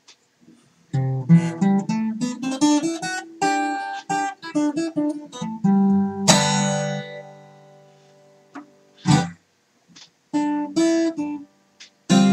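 Solo acoustic guitar. About a second in, a quick run of picked notes starts, then a chord is left ringing and fading, followed by a few sparse notes and fresh strummed chords near the end.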